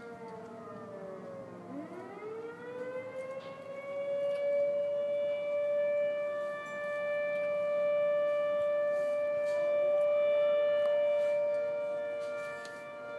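Outdoor warning siren sounding: a falling tone rises again about two seconds in, then holds a steady wail, with other siren tones layered underneath. This is typical of a community warning siren alerting residents to a refinery emergency.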